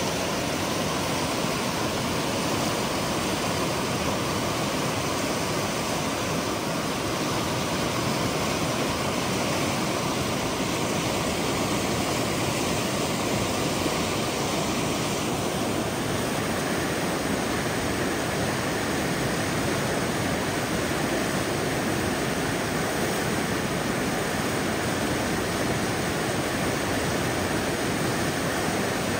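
River rapids: fast whitewater rushing over and around boulders in a steady, unbroken wash of water.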